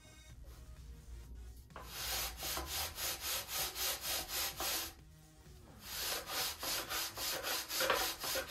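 Long sanding bar rubbed back and forth along the edge of a balsa sheet to sand it square, about three strokes a second, in two runs with a short pause about five seconds in.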